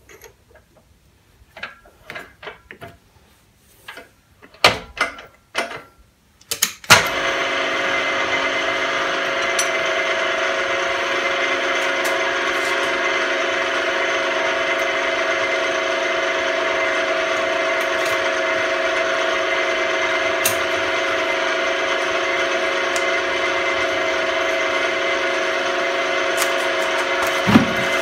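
Clicks and knocks of a tapping drill being fitted in a mill-drill's chuck, then about seven seconds in the machine starts and runs steadily with an even hum and whine. A single knock comes near the end.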